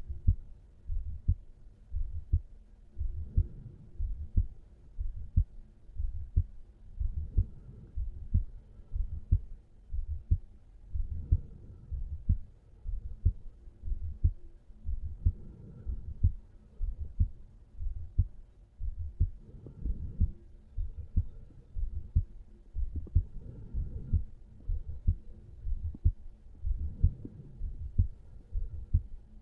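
Human heartbeat heard over the mitral (apex) area of a resting adult man's chest: steady low lub-dub pairs of thumps, a little under a second apart.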